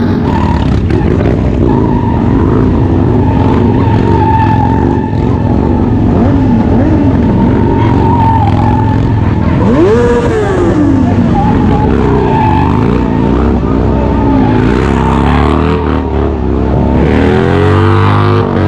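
Harley-Davidson bagger's V-twin engine revving hard while its rear tyre spins and squeals in a smoky burnout. The revs sweep up and down about halfway through and again near the end.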